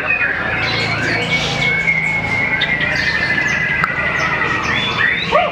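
White-rumped shama singing a varied song of quick whistled notes, with a long, even trill in the middle and rising notes near the end, over other bird calls.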